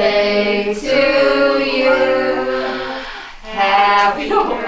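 Singing voices holding long, drawn-out notes, with a short break about three seconds in.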